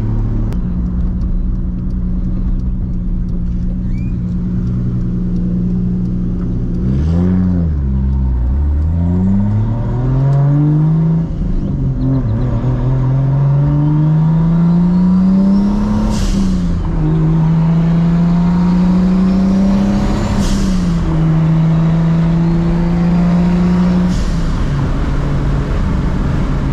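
MKIV Toyota Supra's big-turbo 2JZ straight-six on a straight-pipe exhaust, heard from the cabin: it cruises on a steady note, then pulls through the gears. The revs climb, and at each upshift the pitch falls with a short sharp hiss, about 7, 16, 20 and 24 seconds in. A faint rising turbo-spool whistle climbs with the revs.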